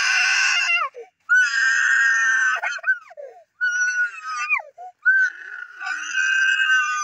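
A young boy screaming and crying in four long, high-pitched wails, each sliding down in pitch at its end: crying in pain while jiggers are being removed from his foot.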